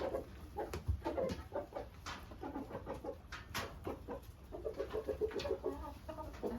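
Hens clucking softly as they eat table scraps, with scattered sharp taps among the calls.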